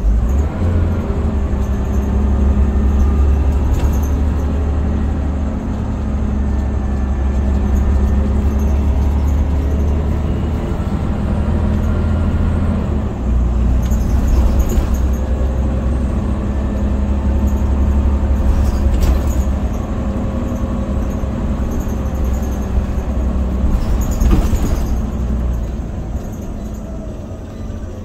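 Scania OmniCity single-deck bus heard from inside the passenger saloon while it is under way: the rear-mounted diesel engine and drivetrain run with a steady low drone, and the engine note shifts a few times. A few short rattles come from the body, and it quietens near the end.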